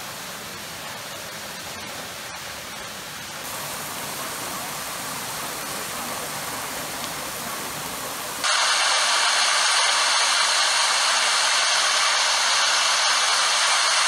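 Waterfall's falling water rushing steadily; about eight seconds in it abruptly becomes louder and hissier.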